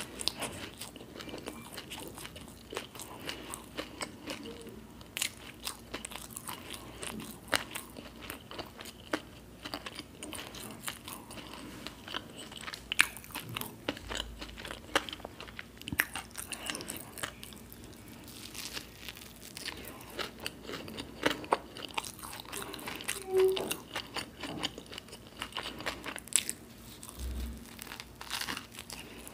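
Close-miked eating of bhajiya pav, toasted bread with onion fritters inside: irregular crisp crunches and chewing throughout. Two brief dull low bumps, about halfway through and near the end.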